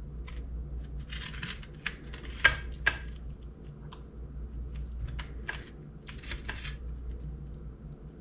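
Quiet handling noises as a wireless meat thermometer probe is worked into a raw chuck roast resting on a wire rack in a metal sheet pan: soft rustles and scrapes, with three sharp clicks between about two and three seconds in, over a steady low hum.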